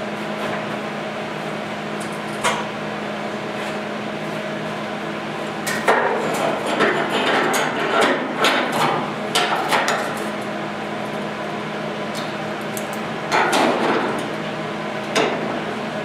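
Metal clanks and clicks of steel locking C-clamp pliers being repositioned and snapped shut on a steel strip against a sheet-steel truck bed panel. A single click comes about 2.5 s in, a run of clatter follows a few seconds later, and two more clanks come near the end, all over a steady background hum.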